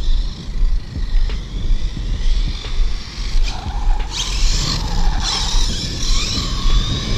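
1/8-scale RC buggy with a 4S brushless motor driving on concrete: the motor whine rises and falls with the throttle, over the hiss of its tape-wrapped off-road tyres on the pavement. It gets much louder from about three and a half seconds in, over a steady low rumble.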